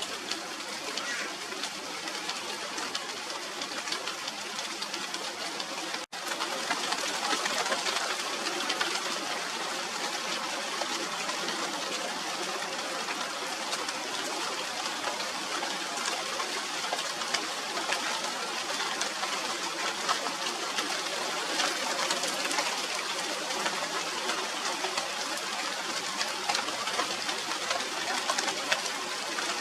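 Steady rain falling on the foliage of a Radermachera sinica (China doll) tree, a dense hiss of many fine drop ticks. The sound cuts out for an instant about six seconds in, then carries on slightly louder.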